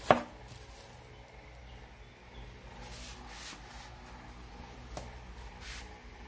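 A single sharp knock right at the start, then faint rustling and a light click near the end.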